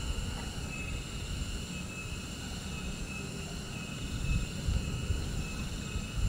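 Outdoor ambience: a steady low rumble under an insect's high, thin note that sounds in short stretches repeating every second or so.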